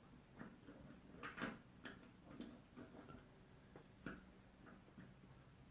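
Faint, irregular metallic ticks and scrapes of lever-lock picks working inside a four-lever padlock, lifting and feeling the brass levers as the lock is picked.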